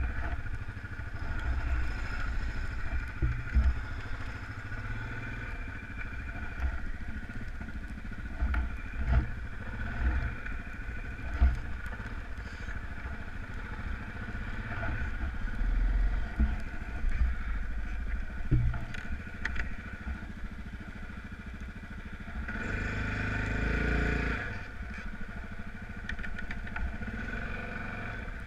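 Off-road vehicle engine running while driving over rough ground, with scattered bumps and knocks. The engine grows louder for about two seconds near the end.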